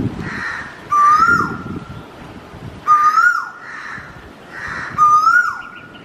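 Asian koel (Indian koel) calling three times, about two seconds apart. Each call is a short whistled note that rises and then drops away sharply.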